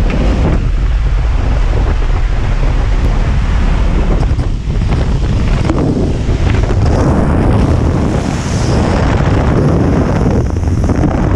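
Loud rushing wind at the open door of a small high-wing jump plane in flight, buffeting the microphone, with the plane's engine and propeller running underneath.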